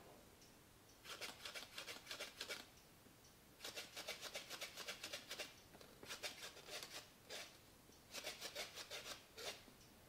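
Paper origami flapping bird's wings flapping and rustling as its tail is pulled, in four quick bursts of a second or two each.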